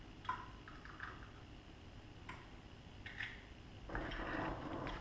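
Chopsticks stirring a wet filling of minced pork, Chinese chives and egg in a glass bowl, starting about four seconds in after a few faint ticks.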